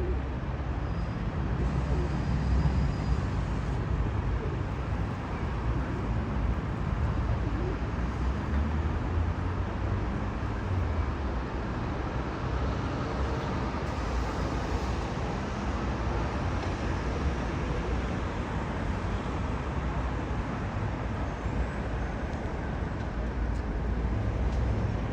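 Steady low rumble of road traffic in outdoor ambience.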